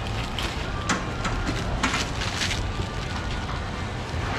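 A few sharp clicks and scrapes as a cleaver-style knife and a peeled pineapple are handled, over a steady low rumble.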